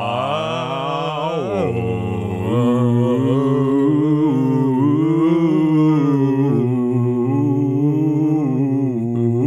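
A man singing a Gregorian-style chant unaccompanied, one voice holding long notes that step slowly up and down.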